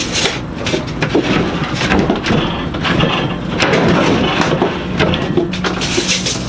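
Handling noise from fitting an appliance into a cabinet opening: repeated knocks, bumps and scraping, with a low steady hum coming in near the end.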